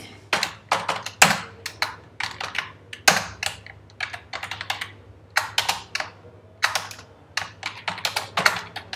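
Typing on a computer keyboard: irregular runs of key clicks, several a second, broken by brief pauses, with a couple of louder keystrokes.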